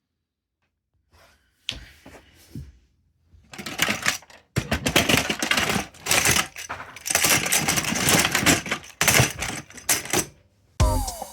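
Small hard toys clattering and rattling against each other in a dense run of clicks, as if rummaged through by hand; music starts near the end.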